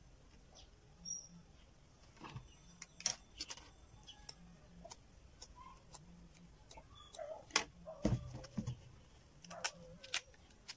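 Scattered clicks, snaps and light knocks of hand work on a fresh banana leaf stalk on a wooden table: a knife cutting the stalk and a thin stick being worked into it, with the loudest knocks, one with a dull thump, about eight seconds in.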